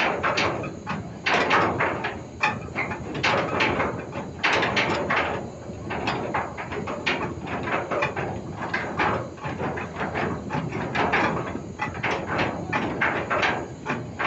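Ship's anchor chain rattling and clanking in quick, irregular bursts as the anchor is lowered.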